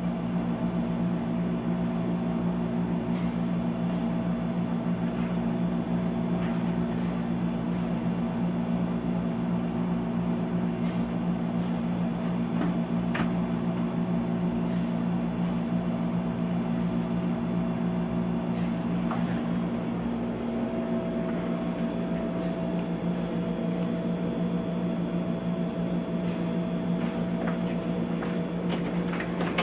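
A steady low mechanical hum, like a fan or motor running, with a faint higher tone joining about two-thirds of the way in.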